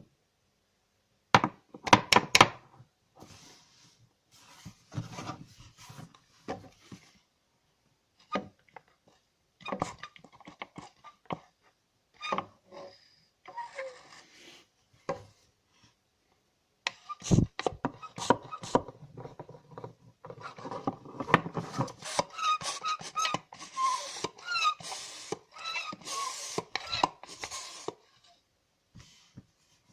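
A squeaking pump being worked: the first half has scattered knocks and clicks, and from about halfway to near the end there is a dense run of rubbing strokes with short, high squeaks that glide up and down. This is the squeak that the oil is meant to cure.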